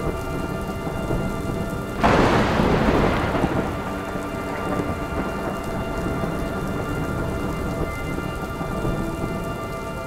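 Steady rain, with a loud thunderclap about two seconds in that rumbles away over the next couple of seconds.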